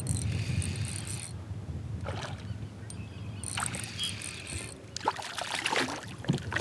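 Fishing reel cranked in two short spells of reeling, then a hooked crappie thrashing and splashing at the surface beside the kayak near the end.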